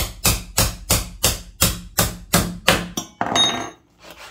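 Hammer blows on a hatchet chopping through duck bone on a cutting board: about ten sharp strikes, roughly three a second, then a brief scrape about three seconds in.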